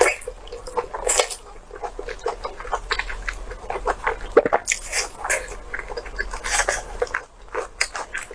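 Close-miked chewing: irregular wet smacks, squelches and clicks of a mouth working through soft, slippery food.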